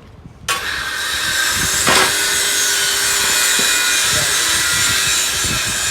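A power tool starts abruptly about half a second in and keeps running steadily, a harsh dense noise with a faint steady hum under it. There is a sharp click about two seconds in.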